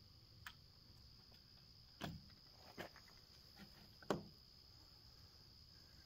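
A handful of light clicks and knocks as the interior assembly of a digital deadbolt is handled and pressed against the door, the sharpest about four seconds in. A steady high insect trill runs underneath.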